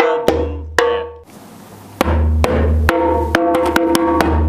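A drum ensemble playing: sharp stick strikes with a ringing pitch and a deep bass-drum boom underneath. The playing drops away briefly about a second in, then comes back with faster strikes.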